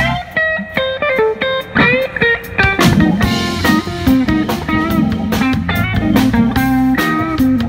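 Live blues band playing an instrumental: an electric guitar lead with bent notes over electric bass, drum kit and keyboard.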